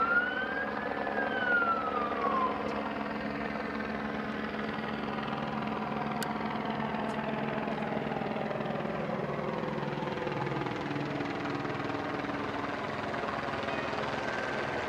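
An emergency-vehicle siren sweeps up and then back down once in the first couple of seconds. After that a steady engine drone runs on, its several tones slowly falling in pitch.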